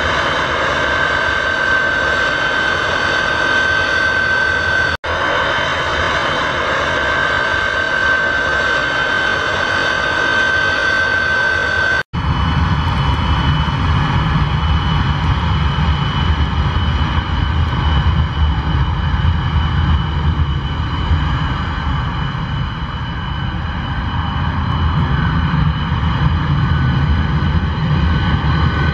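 Tupolev Tu-134A-3's two rear-mounted Soloviev D-30 turbofans running at taxi power as the jet rolls past: a steady high whine over a low rumble. Two brief cut-outs come about five and twelve seconds in, and after the second the rumble is stronger.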